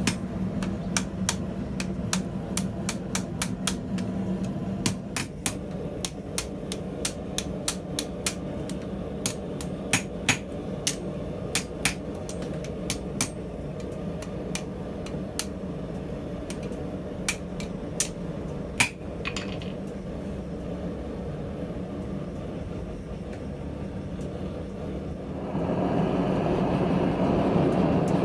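Hand hammer striking steel on an anvil in irregular, ringing blows over a steady low hum, the strikes tapering off about two-thirds of the way through. Near the end a louder, steady rushing noise starts.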